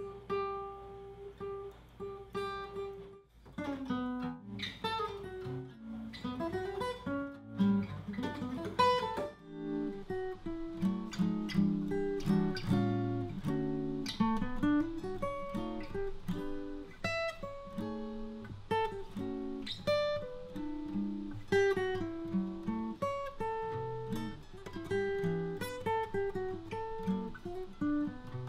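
Solo steel-string acoustic guitar played with a pick: a slow melody of single notes and chords that grows fuller and busier from about ten seconds in.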